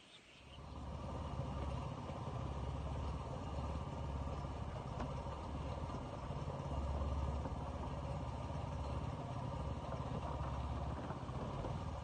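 A small engine running steadily, a low rumble that swells and eases slightly, starting about half a second in.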